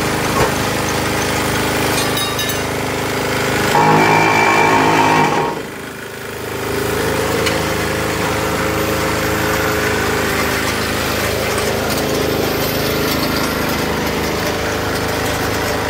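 Engine and vibrator of a mobile cement hollow block machine running steadily with a rattling, jackhammer-like vibration. It grows louder for about a second and a half a few seconds in, dips briefly, then carries on steadily.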